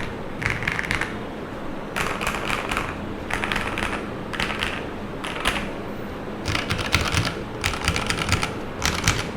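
Typing on a mechanical keyboard in a sound test: several short bursts of rapid key clacks with brief pauses between them.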